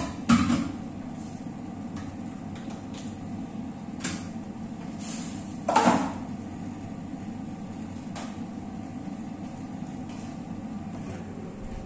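Two clattering knocks, one just after the start and one a little before the middle, with a few lighter clicks between, as a rice cooker's inner pot and lid are handled and set in place; a steady low hum underneath.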